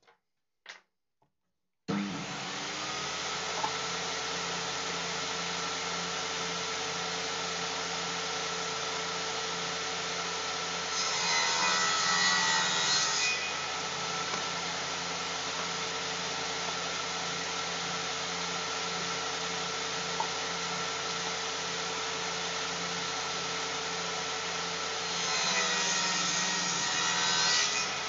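Table saw starting up about two seconds in and running steadily with a constant motor hum. Twice the blade cuts into a wooden strip, louder and rougher for a few seconds each time, as a pass is made to widen a groove.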